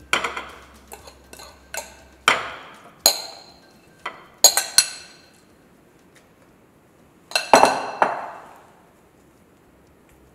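Metal spoon clinking and scraping against a glass mixing bowl while stirring salad, a string of sharp ringing clinks through the first half. A louder cluster of knocks and clinks comes a little past the middle, as the glass bowl is set down on the counter.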